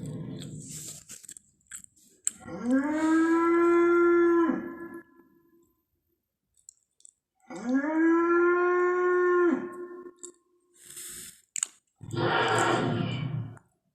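Pachyrhinosaurus creature sound effects: a low rumble fades out, then two long calls about five seconds apart, each sliding up in pitch, holding steady and cutting off sharply, and near the end a shorter, rough, noisy call.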